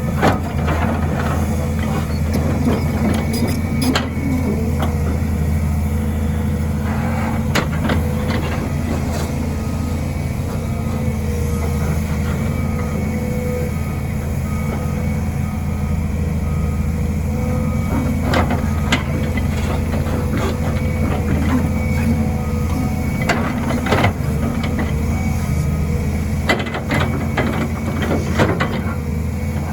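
Volvo EC210B hydraulic excavator's diesel engine running steadily under working load, with scattered knocks and scrapes from the bucket cutting and dragging soil.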